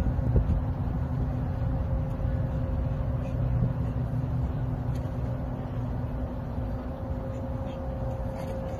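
Steady low rumble of outdoor background noise with a constant mechanical hum running through it, and a few faint ticks.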